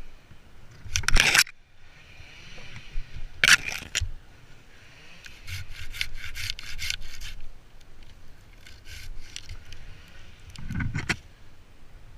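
Wood scraping and rubbing, with a run of quick rasping strokes in the middle and a few louder sharp noises: one about a second in, one at about three and a half seconds, and one near the end.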